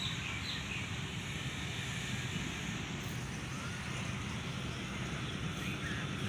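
Diesel locomotive hauling a passenger train, its engine running with a steady low rumble as it approaches slowly.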